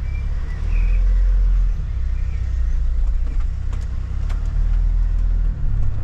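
Kia camper van's engine running as the van rolls slowly, heard inside the cab as a steady low rumble, with a few light clicks.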